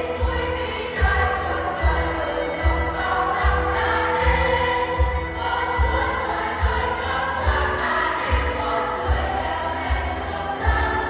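Church choir singing a Christmas carol medley in held, sustained notes over recorded backing music with a steady low beat, about one pulse every 0.8 seconds.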